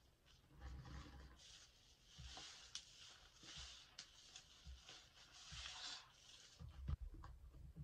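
A lathered sponge being squeezed and kneaded by hand: faint wet squishing with the crackle and fizz of thick soap foam, in two longer stretches, and soft bumps near the end.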